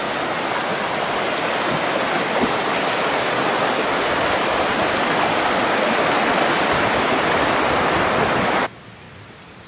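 Rushing mountain stream, white water tumbling over rocks, a loud steady rush that cuts off abruptly near the end.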